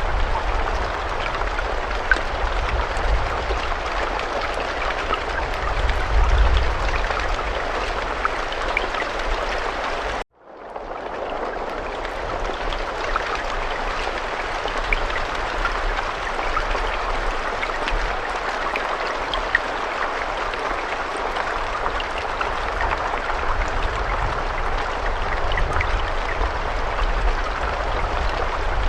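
Steady rain, a dense even patter with scattered individual drops ticking and a low rumble underneath. About ten seconds in the sound cuts out suddenly and fades back in over about a second.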